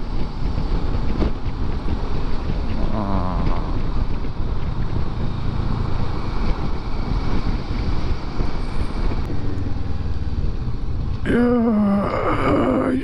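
Motorcycle running at steady road speed, its engine rumble mixed with wind noise on the microphone.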